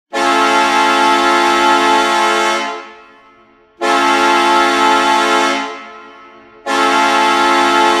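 Maine Mariners arena goal horn sounding three long blasts, a steady multi-note chord, each blast dying away with an echoing tail; the third is still sounding near the end.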